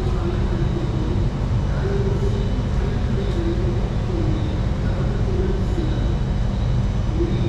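Singapore Circle Line MRT train heard from inside the carriage: a steady low rumble of the train running on the rails, with a wavering hum over it.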